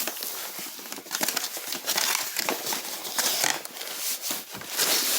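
Packaging being handled as a tool kit box is opened and emptied: irregular crinkling and rustling, with quick clicks and scrapes.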